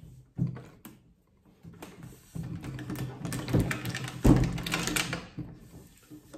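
Water-filled plastic bottles being handled and hung by a cord from a chair back: scattered clicks and crinkling of the plastic, growing busier after about two seconds, with one louder knock about four seconds in.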